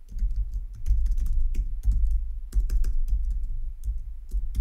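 Typing on a computer keyboard: a quick, irregular run of keystrokes, with a low thump under the clicks.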